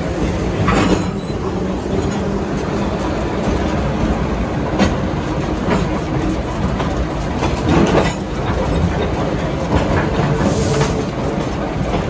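Train rolling along the track, heard from an open-air car: a steady rumble of wheels on rail, with a few sharp clunks as the wheels cross rail joints and a brief hiss near the end.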